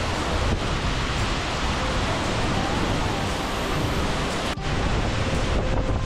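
Khlong Lan Waterfall's heavy fall of water pouring over a rock face: a loud, steady roar, briefly dipping about four and a half seconds in.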